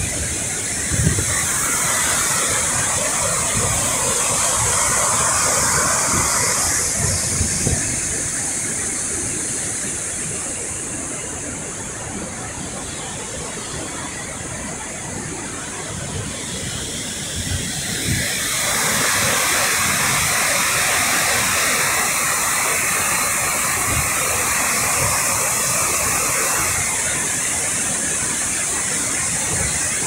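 Steady rushing roar of a large waterfall's cascading water, with low gusts of wind buffeting the microphone. The roar eases for several seconds in the middle, then swells back up about two-thirds of the way through.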